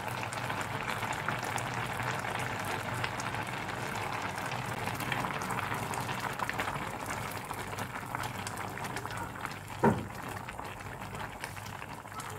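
Cassava leaves in coconut-milk broth boiling in a pot with a steady bubbling and crackling. About ten seconds in there is a single sharp knock as the metal ladle strikes the pot.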